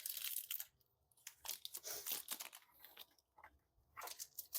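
Foil Pokémon booster-pack wrapper crinkling and cards being handled, in short irregular bursts with brief gaps.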